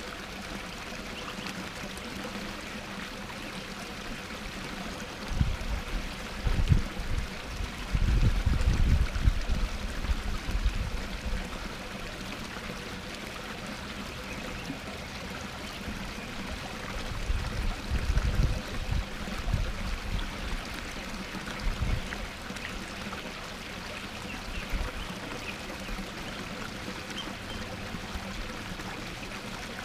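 Small waterfall spilling over rocks into a pond, a steady trickling splash of water. Two stretches of low rumbling, from about five seconds in and again from about seventeen seconds in, are louder than the water.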